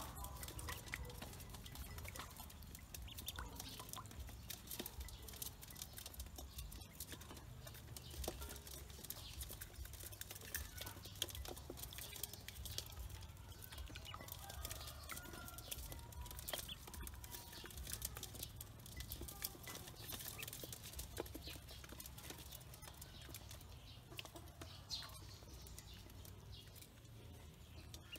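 A group of ducklings peeping softly and feeding, with many small clicks and taps of bills pecking crumb feed in an aluminium bowl, over a low steady rumble.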